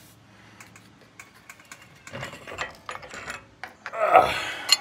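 Front brake rotor and automatic 4x4 hub assembly on a 1992 Ford Bronco being worked off the wheel spindle by hand: a run of small metallic clicks and rattles that gets busier, with a louder burst just after four seconds and quick clicks at the end.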